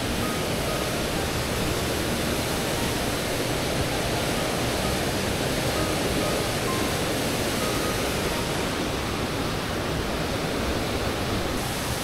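Mountain stream rushing over rocks, a steady, even wash of water noise.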